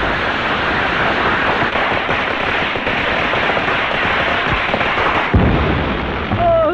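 Fireworks going off: a dense, continuous crackle of bursting firecrackers, with a heavier boom about five seconds in.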